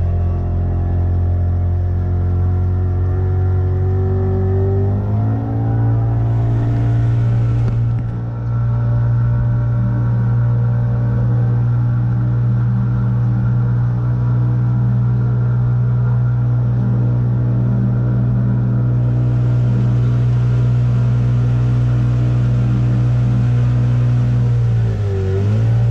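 A small river passenger boat's engine running steadily under way. Its pitch rises about five seconds in as it speeds up, holds steady, then dips and picks up again near the end.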